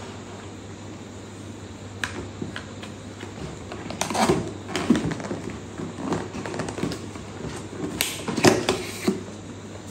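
Cardboard packaging of a camera box being handled: hands sliding, tapping and lifting the stiff inner box, giving scattered scuffs, knocks and rustles from about two seconds in, loudest around four and eight seconds. A steady low hum lies underneath.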